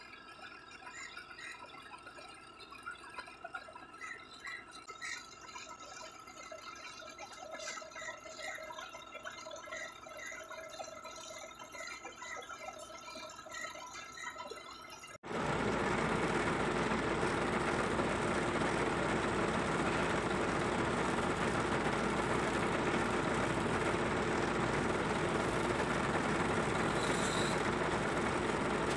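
A quiet stretch with faint high tones, then about halfway through a sudden jump to the loud, steady running of a heavy tow truck's diesel engine idling.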